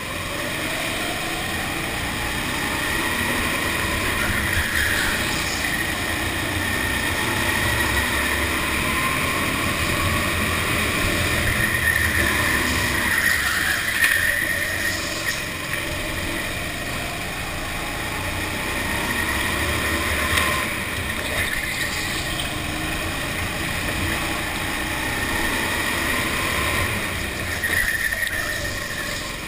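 Go-kart engine running at racing speed over one full lap, its pitch rising on the straights and falling back into the corners several times.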